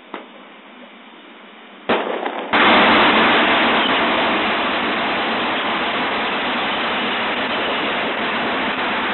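Fireworks going off at close range: a sharp crack about two seconds in, then, half a second later, a loud, dense, unbroken rush of noise that holds steady.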